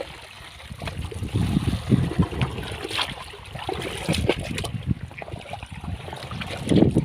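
Water sloshing and splashing in irregular surges, loudest about two seconds in and again near the end.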